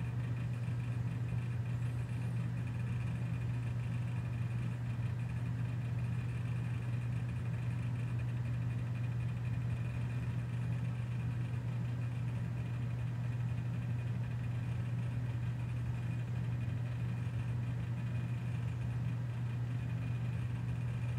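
Imation SuperDisk LS-120 drive running steadily as it writes to a 720K floppy disk: an even, low hum with no breaks, the slow write still under way.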